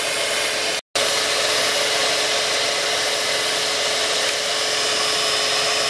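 A steady whooshing machine noise, like a fan or small motor running, with a faint steady hum in it; it cuts out for an instant about a second in.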